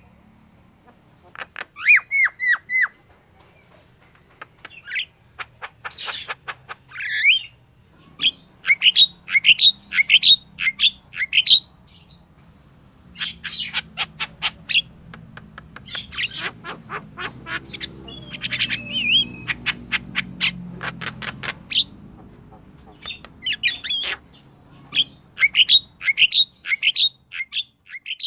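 Yellow-vented bulbul (crucukan) singing lively, in repeated bursts of quick, bubbly chirps with short pauses between them.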